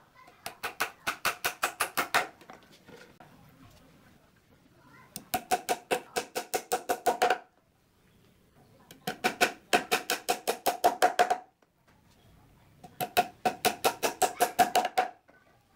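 Claw hammer driving nails through a pine shelf board into the upright beneath: four runs of quick taps, about five a second, each run lasting about two seconds, every strike with a short metallic ring.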